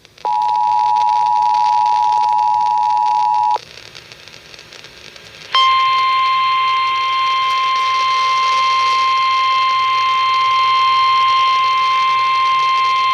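Emergency Alert System tones on a radio broadcast, heralding a severe thunderstorm warning. First the two-tone EAS attention signal sounds steadily for about three seconds. Then, after a two-second gap, a single steady alert tone starts and holds to the end.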